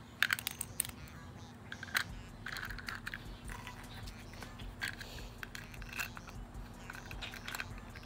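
Light plastic clicks and taps, irregular and scattered, as the pieces of a cracked cheap earbud charging case and its earbuds are handled and pressed back together.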